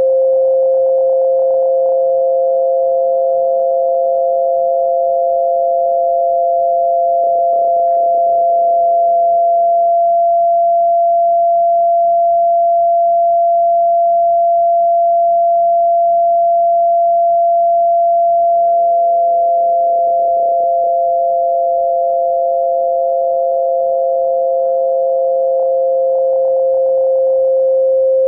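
Tinnitus-masking sine tones: two steady pure tones, one slightly higher than the other. The lower tone fades out about a third of the way in and fades back in about two-thirds of the way through, leaving the higher tone alone in between.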